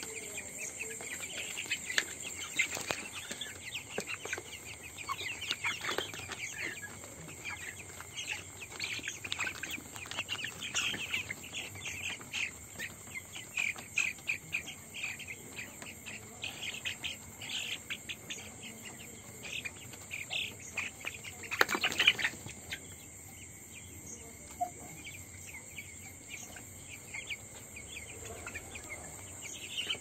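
A flock of young chickens peeping and cheeping, many short chirps overlapping, over a steady high-pitched ringing. About two-thirds of the way through there is one louder burst.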